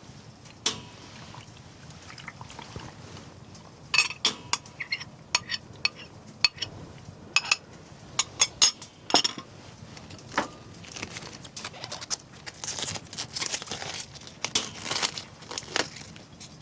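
Metal camp cookware being handled: a string of sharp clinks and knocks, thickest from a few seconds in, mixed with rustling toward the end.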